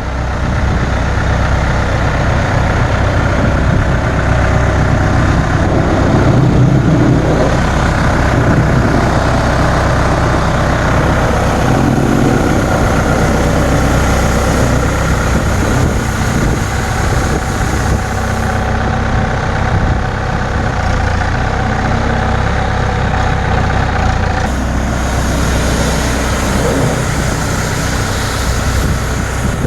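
Heavy machine's engine running steadily, with a constant rushing hiss over it.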